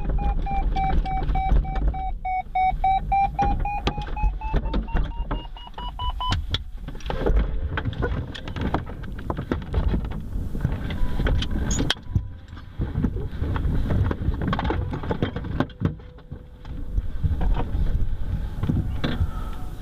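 Centrair Pégase glider rolling out on grass after landing: the wheel and airframe rumble and rattle over the ground, with an electronic cockpit tone that dips and then rises in pitch before stopping about six seconds in. With the glider at rest, scattered knocks and clicks follow in the cockpit.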